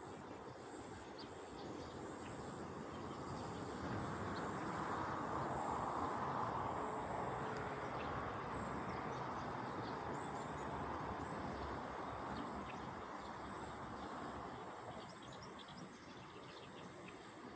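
Small birds giving short, high chirps that fall in pitch every second or two, over a thin steady high tone. A broad wash of passing-traffic noise swells up a few seconds in and fades away again, and is the loudest thing heard.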